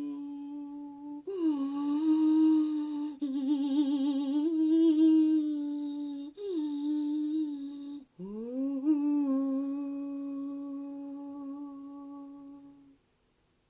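A voice sound-healing toning: long held notes hummed at much the same pitch, in about five breaths with short breaks, wavering in pitch in the middle and with one note sliding up into place. The last note slowly fades and stops shortly before the end.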